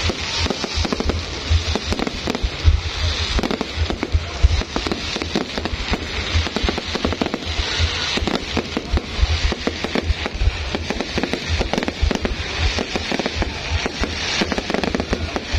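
Fireworks going off in a dense, continuous barrage: rapid bangs and crackling with deep booms, without a break.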